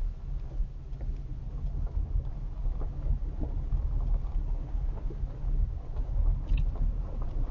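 Vehicle driving along a campground road: a steady low rumble with scattered small knocks and rattles.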